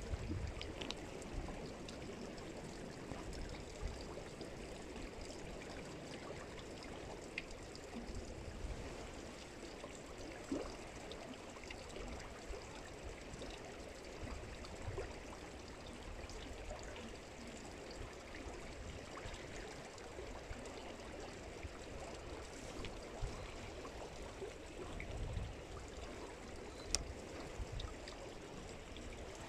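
Faint, steady rush of flowing water, with a few small clicks scattered through it.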